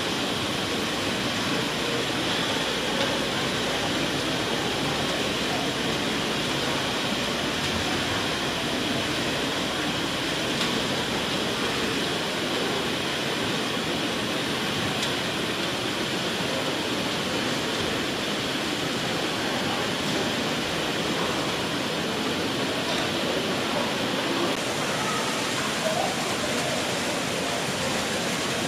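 Steady, even, hiss-like din of a large hall full of people, with a few faint voices rising out of it now and then.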